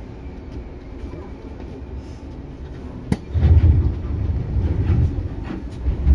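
Seibu 2000 series electric train heard from inside the car above the line breaker: a steady low running rumble, then one sharp clack about three seconds in as the line breaker closes. After the clack the rumble of the running gear grows much louder and uneven, swelling again near the end.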